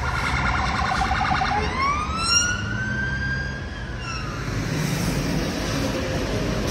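Emergency vehicle siren on a city street: a fast pulsing warble for about the first second and a half, then a rising wail that holds and fades out about four seconds in, over the steady noise of traffic.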